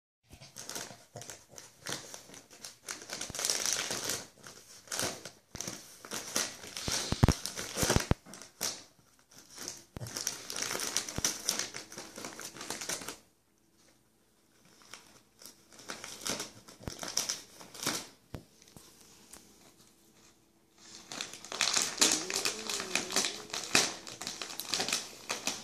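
Shiny gift-wrap paper crinkling and rustling in repeated bursts as a Lhasa Apso works at a wrapped present with its head and paws. There are a couple of short pauses partway through.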